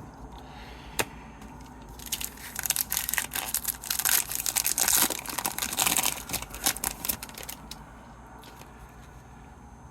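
Wrapper of a 2023-24 Extended Series hockey card pack being torn open and crinkled: a dense crackling from about two seconds in until nearly eight seconds, after a single sharp tick about a second in.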